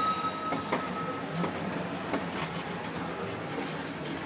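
Small mall ride-on train running with a steady rattle and a few faint light clicks. A thin high tone fades out about a second in.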